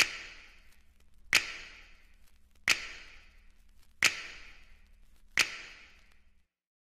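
Five sharp percussive hits from the instrumental soundtrack, evenly spaced about a second and a half apart, each fading out with an echoing tail over a faint low hum.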